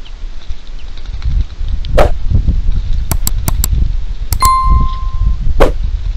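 Subscribe-button sound effect: four quick mouse clicks, then a single electronic bell ding that rings for about a second. Two louder knocks come about two seconds in and near the end, over a steady low rumble.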